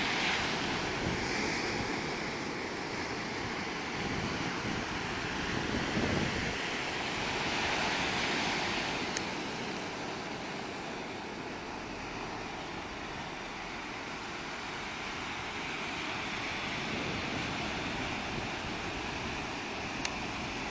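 Sea waves washing onto the shore, the surf swelling and easing in several surges, with wind buffeting the microphone.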